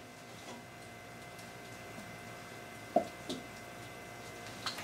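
Faint handling sounds of a plastic bottle held in gloved hands over a low room hum, with two short sharp taps close together about three seconds in.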